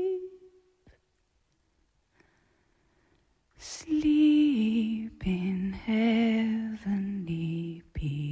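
A woman sings softly in a slow, lullaby-like song. A held note fades out at the start, a few seconds of near silence follow, and about three and a half seconds in she comes back with a slow line whose notes step downward.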